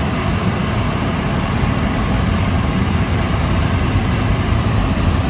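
Steady low rumble of engine and road noise inside the cabin of a manual car being driven.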